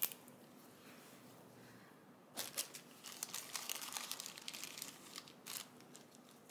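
Small plastic bags of diamond-painting stones being handled, giving a light crinkling with small clicks. It starts about two seconds in and continues almost to the end.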